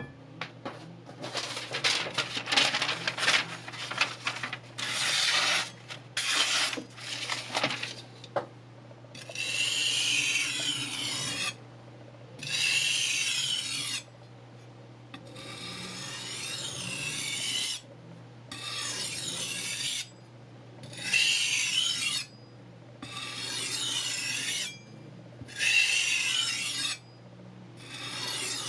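Kitchen knife blade rasping against sandpaper on a block: quick short strokes at first, then, from about eight seconds in, long even strokes of about two seconds each with short pauses between them.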